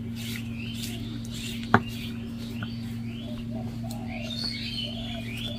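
Small birds chirping repeatedly over a steady low hum, with one sharp stone-on-stone knock about two seconds in as the stone grinding roller (nora) is set down on the stone slab (shil).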